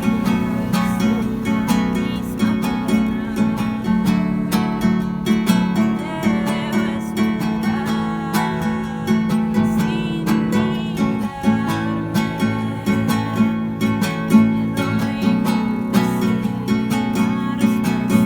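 Music with strummed acoustic guitar chords.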